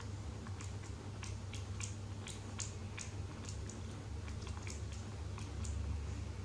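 Quick, irregular soft clicks and crackles as a baby macaque grooms a man's hair, over a steady low hum.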